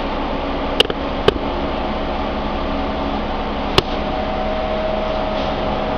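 Steady hum and whir of a room air conditioner running, with a constant tone, broken by three short sharp clicks: about a second in, a moment later, and near four seconds.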